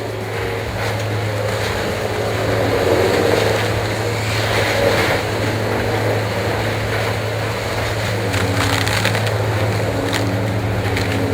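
Tub grinder running under load: a steady engine drone with the crunching and cracking of wood being ground up, and a few sharper cracks near the end.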